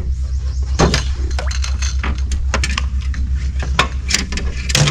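Irregular light clicks and knocks from fishing tackle being handled in a metal jon boat as a bream is brought in, over a steady low rumble.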